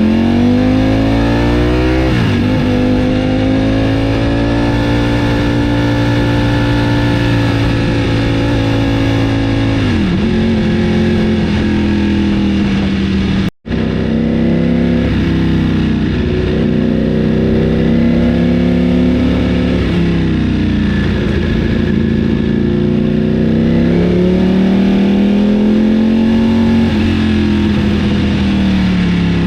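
Ducati Panigale V4's Desmosedici Stradale V4 engine running under changing revs. The pitch climbs, holds steady for about eight seconds, drops, then swells up and down again. It cuts out for an instant about 13 seconds in.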